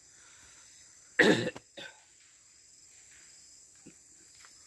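A person coughs once sharply about a second in, then gives a shorter, weaker cough; otherwise quiet.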